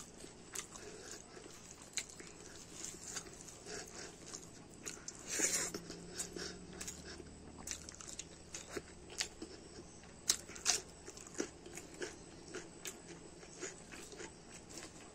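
Close-up chewing of mouthfuls of rice and curry eaten by hand, with irregular wet mouth clicks and smacks and a few crunches. A louder, noisy rush comes about five and a half seconds in, and a few sharper clicks follow a little after ten seconds.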